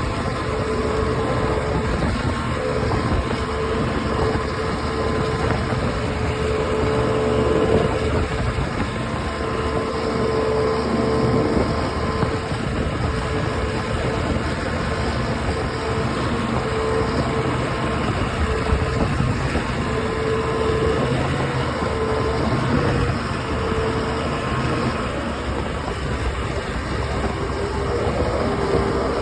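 OX66 outboard motor running steadily with a weird grinding noise whose cause the owner cannot find: it is not the spark plugs, compression or a slipping prop. A steady mid-pitched whine comes and goes over the rough engine sound.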